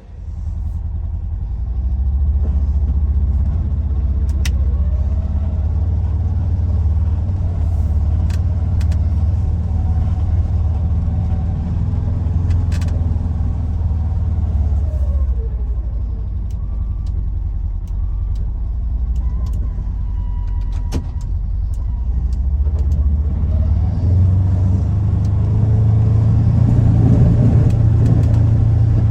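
Polaris Ranger XP 1000 side-by-side's twin-cylinder engine running under way, a steady low drone that rises in pitch and level about two-thirds of the way through.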